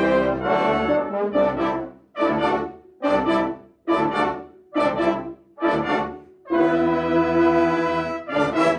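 Youth brass band of cornets, horns, trombones, euphoniums and tubas playing the closing bars of a piece: sustained chords, then a run of about six short accented chords, a long held chord and a final short stab.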